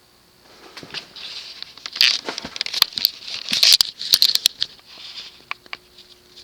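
Loud, close rustling and crinkling with many sharp clicks, lasting about five seconds and dying away near the end.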